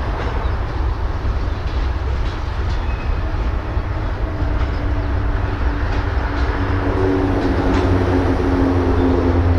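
Diesel locomotives moving a freight train slowly through a rail yard: a steady low rumble, joined about halfway through by a steady engine hum that grows a little louder as the engines work harder.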